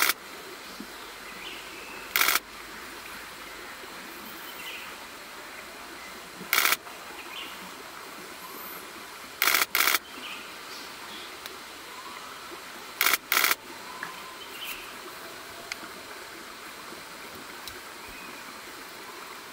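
Nikon D6 digital SLR shutter firing in short rapid-fire bursts, about six of them, some in quick pairs, over a faint steady outdoor background.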